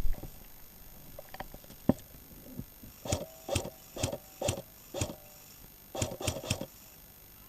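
Airsoft gun firing single shots: five sharp shots about half a second apart, a short pause, then three more in quicker succession. A couple of isolated clicks come earlier.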